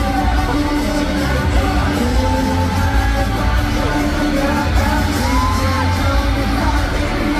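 Live concert sound heard from the audience: loud amplified pop music with a steady heavy bass and singing, and fans yelling and screaming over it.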